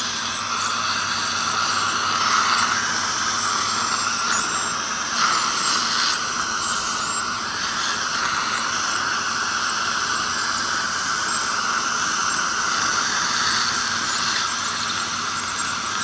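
Ultrasonic dental scaler running steadily with its water spray as it removes heavy tartar from the lower front teeth, a continuous high whine over a hiss, with dental suction drawing off the water.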